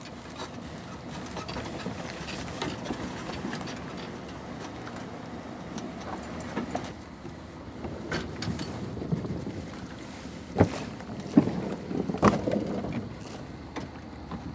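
Aluminum boat being launched off its trailer: a few sharp metal clanks and knocks from the hull, trailer and winch gear, loudest in a cluster near the end, over a steady low background noise.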